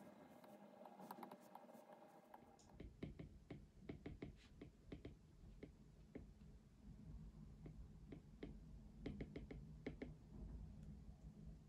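Faint, irregular light clicks and taps from desk work, over a low steady hum. The background changes suddenly about two and a half seconds in.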